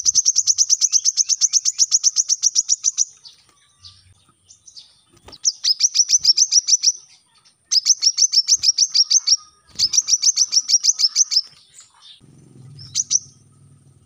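Male brown-throated sunbird singing rapid trills of high, sharp notes at about ten a second. The trills come in four bursts of one and a half to three seconds each, with short gaps between them, then one brief phrase near the end.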